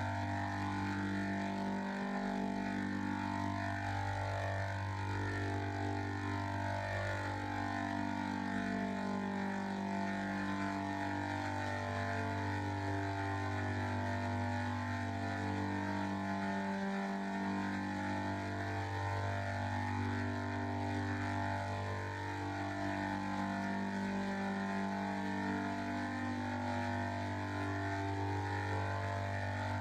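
Electronic drone sound effect: a constant low hum under layered steady tones that shift in pitch every second or two, never breaking off.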